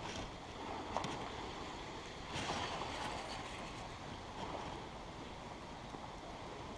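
Faint, steady outdoor noise with wind on the microphone, broken by a single sharp click about a second in and a brief rustle about two and a half seconds in.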